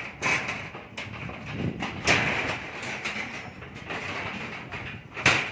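Rebar tying on a steel deck: irregular sharp metal clanks and knocks over a steady hiss of site noise, the loudest knocks about two seconds in and near the end.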